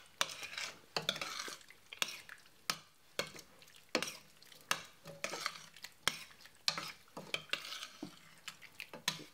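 A utensil stirring a pot of curry just after stock has gone in, knocking and scraping against the pot with irregular sharp clicks a few times a second, over a light sizzle from the pan.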